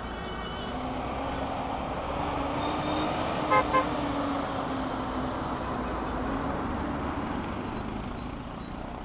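Street traffic with a vehicle engine droning past, and two quick beeps of a vehicle horn about three and a half seconds in.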